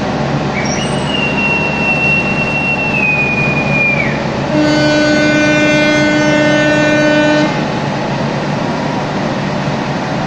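A high whistle blows for about three seconds and drops in pitch as it ends. Half a second later a diesel locomotive's horn sounds one steady three-second blast. This fits a departure whistle answered by the driver's horn signal (semboyan 35). An idling diesel locomotive hums underneath throughout.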